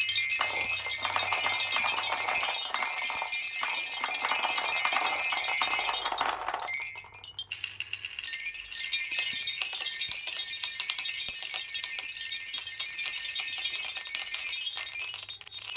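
Many marbles rolling and clinking down a marble run, a dense clatter of small clicks that drops away briefly about seven seconds in before picking up again.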